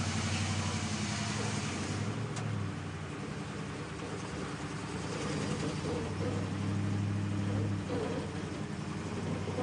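Land Rover Defender engine running at low, steady revs as the vehicle crawls up a steep ramp under load, the note easing a little a few seconds in and then firming again.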